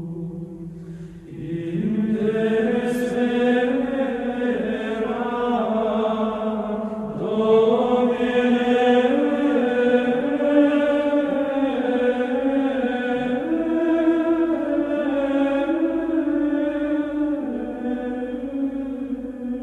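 Background music: vocal chant sung in long held notes that move step by step in pitch, coming in louder about a second in.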